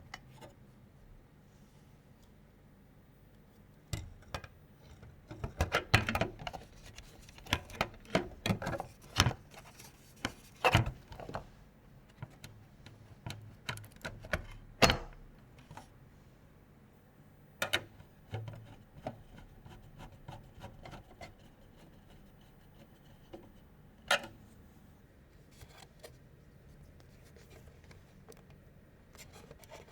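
PC parts being handled and fitted during assembly: scattered clicks, taps and knocks of hard plastic and metal. They come thick for the first half and then thin out to a few isolated clicks.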